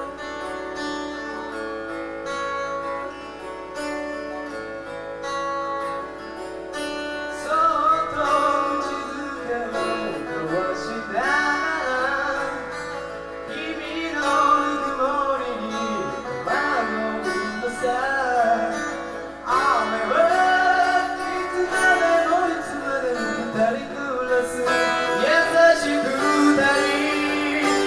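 Live rock band playing: an intro of picked electric guitar notes over a steady beat, then a lead vocal comes in singing about seven seconds in. The band gets fuller and louder near the end.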